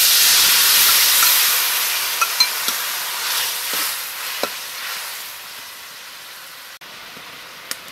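Tamarind fish sauce sizzling in a wok of hot oil and fried chopped garlic just after being poured in. The sizzle is loud at first and dies down steadily over several seconds, while a spatula stirs it with a few light taps against the wok.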